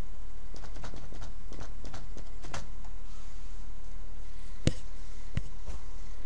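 Computer keyboard keys tapped in quick succession as a password is typed, then two sharper clicks past the middle, typical of a mouse button. A steady low hum runs underneath.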